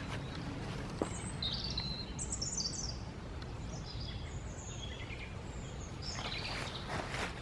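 Small woodland birds chirping and trilling in short high calls, over a steady low rumble, with a few soft rustles near the end.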